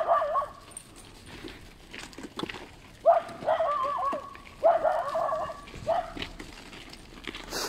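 A dog barking in four bouts: at the start, from about three to four seconds in, near five seconds, and briefly around six seconds. The longer bouts waver in pitch. The walker takes it for the dog being protective of the group.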